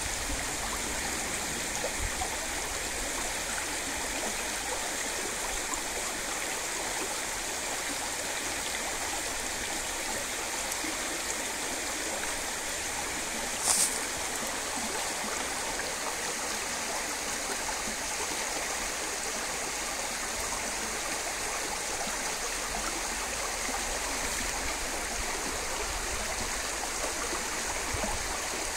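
Shallow creek water running steadily over stones, with one brief, louder hiss about halfway through.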